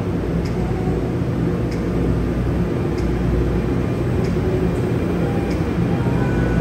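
Budd Arrow III electric multiple unit rolling slowly past: a steady low hum and rumble of its motors and running gear, with light ticks about once a second.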